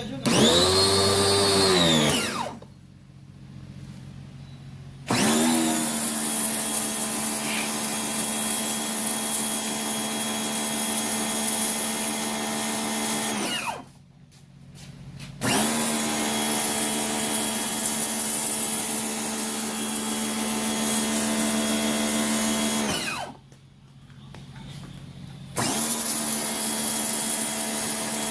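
Electric pressure washer's motor running with a steady whine, cutting out for about two seconds and starting up again three times; the first short run rises and falls in pitch.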